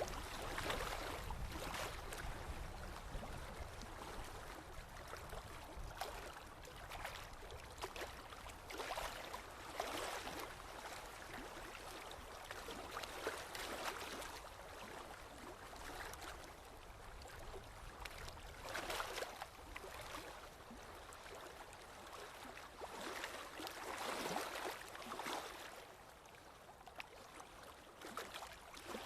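Forest river water rushing and splashing: a steady hiss of flowing water with irregular louder gurgling surges every few seconds.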